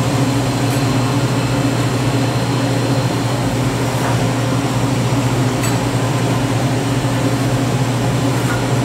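Steady low machine hum, with a couple of faint clicks about four and five and a half seconds in as a scraper is drawn across the top of a chocolate-bar mold.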